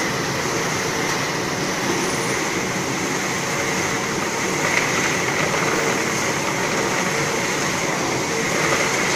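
Caramel popcorn production-line machinery running steadily, the rotating stainless-steel coating drum tumbling popcorn out of its mouth: a constant mechanical drone and hiss with a faint steady whine.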